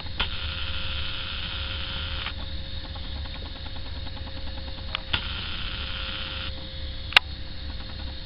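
A camcorder's built-in zoom motor whirring in two stretches, about two seconds and then a second and a half long, each starting with a click, over a steady low rumble and a constant hum. A sharp click sounds once near the end.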